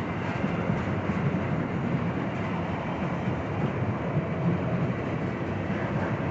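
Freight train of tank cars rolling past, a steady rumble of wheels on the rails.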